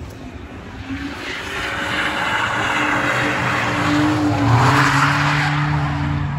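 BMW E46 coupe drifting: the engine is held at high revs while the rear tyres squeal and scrub through a long, smoky slide. The sound grows louder, and the engine note climbs slightly about two-thirds of the way in.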